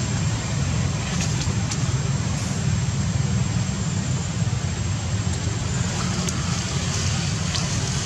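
A steady low rumble of outdoor background noise, with a few faint clicks.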